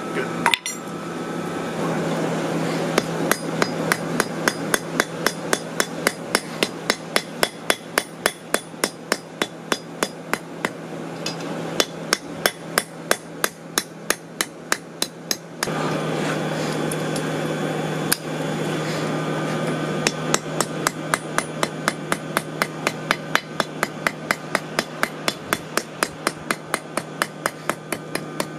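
Hand hammer striking a hot railroad spike on a steel anvil, an even run of blows at about three a second as the end is drawn out and rounded, with a brief break about halfway through. A steady low hum runs underneath.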